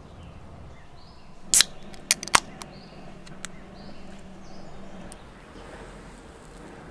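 Aluminium beer can opened by its pull tab: one loud sharp crack, followed by a few quieter clicks.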